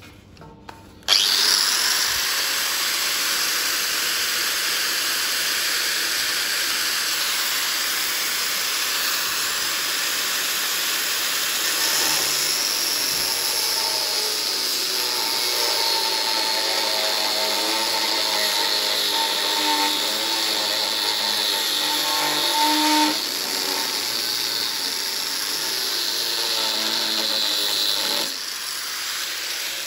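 Electric angle grinder working steel: it starts about a second in and runs steadily with a high whine that sags slightly under load, then drops in level near the end.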